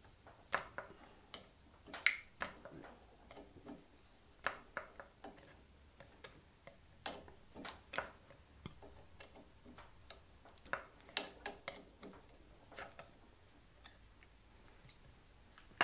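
Faint, irregular light metallic clicks and ticks of a long steel rod tool working in the truss rod channel, turning a guitar's truss rod nut out.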